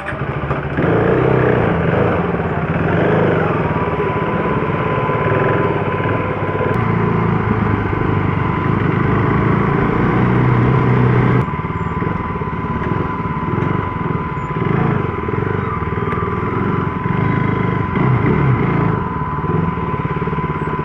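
Motorcycle engine running steadily, with an abrupt change in its sound about halfway through. A steady high-pitched tone sounds over it from about four seconds in.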